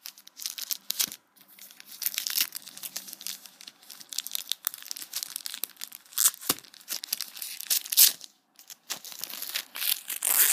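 A foil Redakai trading-card booster pack being torn open and crinkled by hand: a run of irregular crackles and rips, the loudest about six and eight seconds in.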